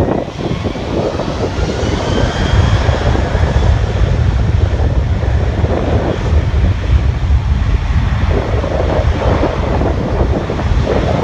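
Airliner's jet engines, loud and steady with a deep rumble, as the plane passes; a faint whine slides in pitch over the first few seconds. Wind buffets the microphone.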